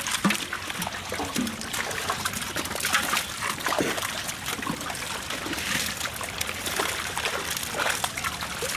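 Pond water splashing and trickling in many small, irregular splashes as a fishing net and its catch are handled.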